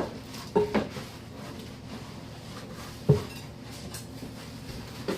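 Kitchenware clinking and knocking against a hard surface: a knock at the start, two quick ones just after, and a louder one about three seconds in, over a steady low hum.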